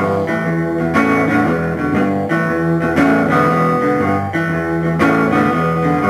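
Guitar playing a slow blues riff with no vocals, with notes and chords struck about once a second.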